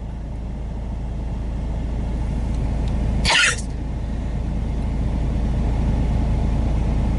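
A person's sneeze, a single short, sharp burst about three seconds in, over the steady rumble of the car driving, which grows gradually louder.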